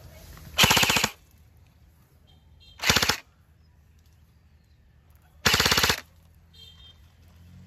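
Airsoft gun firing three short full-auto bursts, each about half a second of rapid clicking shots, with pauses of about two seconds between them.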